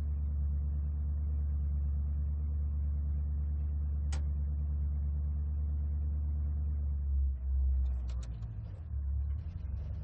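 Muscle car engine idling with a steady, deep rumble, after a rev. A short tick sounds about four seconds in, and the engine note wavers unevenly near the end.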